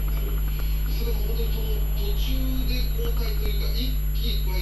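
Steady low electrical hum, like mains hum, with faint indistinct sounds coming and going above it and a short click at the very end.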